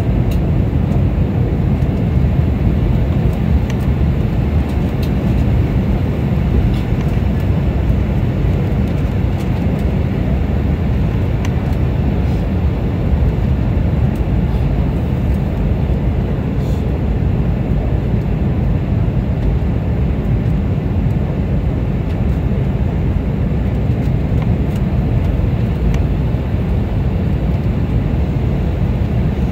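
Steady cabin noise inside an airliner on its descent: a deep, even rumble of engines and rushing air, with no change in level.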